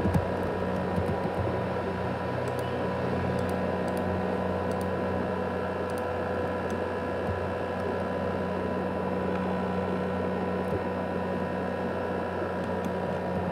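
ASUS X543UA laptop's cooling fan running hard: a steady whir with several held whining tones, the 'jet engine' sound of the broken-down laptop.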